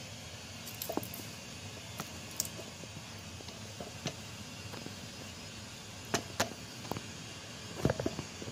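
Steady hiss of lit gas stove burners, with scattered light clicks and knocks and a short cluster of them near the end.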